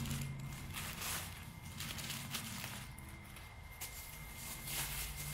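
Plastic packaging rustling and crinkling in irregular bursts as a poly mailer is pulled open and a bubble-wrapped part is handled.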